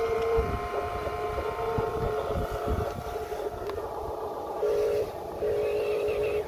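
A steady horn-like tone, then two stretches of a fast warbling beep about five seconds in, over a low irregular rumble.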